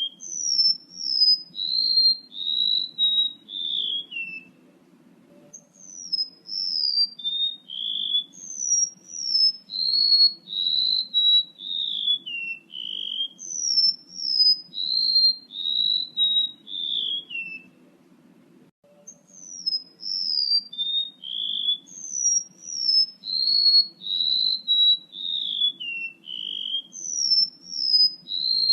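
Male rementuk laut calling, played as a bird lure: repeated runs of short clear whistles, each run starting high and stepping down in pitch, with two short pauses.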